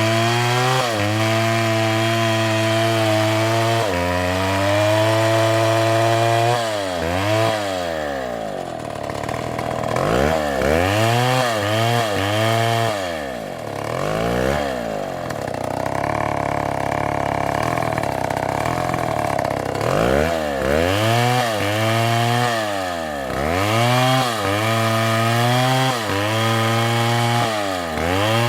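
Chainsaw engine running fast, its speed dropping and climbing again many times, with a steadier stretch in the middle.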